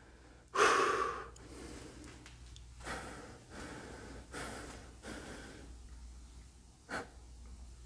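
A man breathing heavily: one loud sharp breath about half a second in, then softer breaths roughly once a second, with a brief sharp sound near the end.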